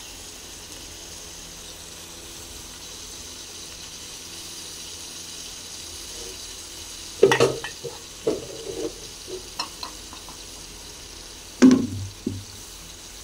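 Steady sizzling hiss of a pot cooking on a small stove, with a metal ladle clinking and scraping against steel pots and bowls: a clatter about seven seconds in, a few lighter knocks after it, and another clatter near the end.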